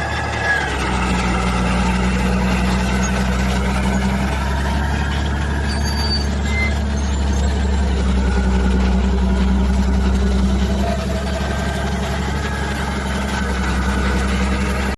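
Engine of a heavy machine running steadily with a continuous low drone.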